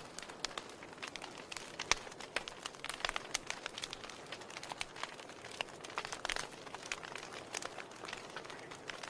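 Wood fire burning in a fireplace, crackling: irregular sharp pops and snaps, thicker in clusters, over a soft steady hiss.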